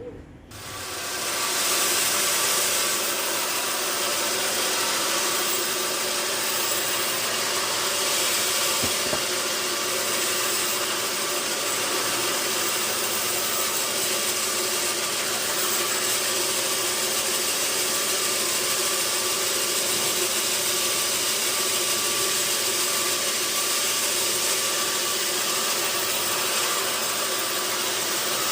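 Sawmill saw and its motor running steadily. It comes in suddenly about half a second in, then holds an even, noisy level with a faint hum under it.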